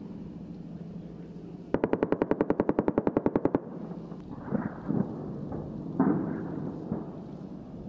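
A long burst of rapid automatic gunfire, about ten rounds a second for nearly two seconds, followed by a few dull thumps. A steady low hum runs underneath.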